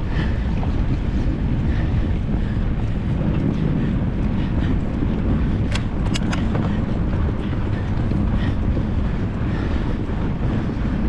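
Wind buffeting an action-camera microphone during a fatbike ride through snow: a steady low rumble, with a few sharp clicks about six seconds in.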